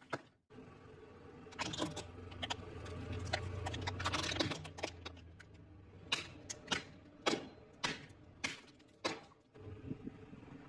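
An irregular run of sharp cracks and clicks, several close together, with a low steady hum under them for a few seconds in the first half.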